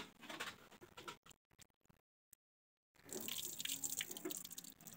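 Faint tap water running and dripping as raisins are rinsed by hand in a plate, broken by a stretch of dead silence about two seconds in.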